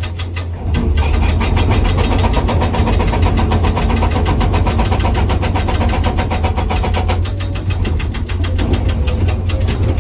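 Hydraulic breaker on a Komatsu PC200 excavator hammering hard rock in rapid, evenly spaced blows over the steady hum of the excavator's diesel engine. The hammering gets louder about a second in and eases briefly around seven seconds.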